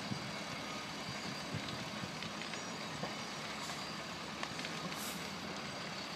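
Steady drone of idling truck engines, with a few faint clicks.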